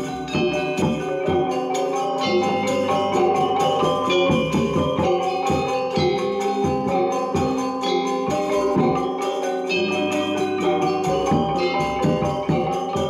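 Balinese gamelan ensemble playing: many bronze metallophones struck in quick, dense patterns, their tones ringing on over one another.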